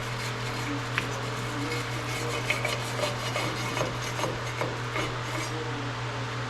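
Hand wire brush scraping rusty metal in short uneven strokes with a few sharp clicks, over a steady low hum; the scraping stops about five and a half seconds in.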